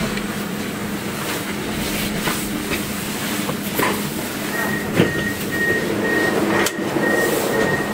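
Milan Metro line M5 driverless train standing at a station: a steady electrical hum with a few sharp clicks, the loudest about five seconds in. From about halfway, a high beep repeats on and off.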